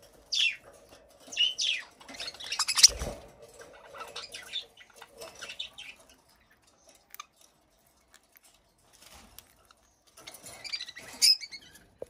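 Budgerigars chirping in short, falling calls, with a flutter of wings and a soft thump about three seconds in, then a burst of chattering near the end.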